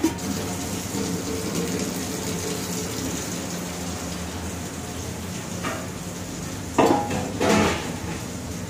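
Clatter of metal pots and utensils against a steady background hum, with two loud clanks about seven seconds in.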